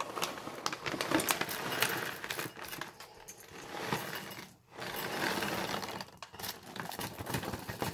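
Dry cat kibble poured from a plastic pouch, rattling and clinking into a ceramic bowl in a dense patter of small hits, with a brief pause about halfway through.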